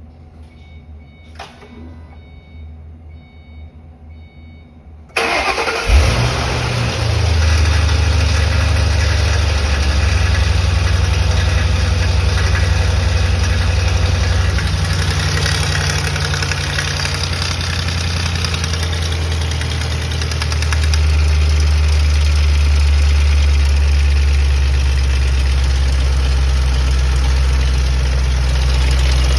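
2005 Ford Mustang GT's 4.6-litre V8 cranking and catching about five seconds in, after a few faint clicks, then idling steadily, with an engine rattle that the owner cannot place.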